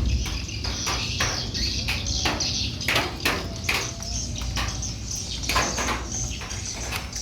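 Swiftlets chirping and twittering in many short sharp calls over the steady hiss and low rumble of a rainstorm.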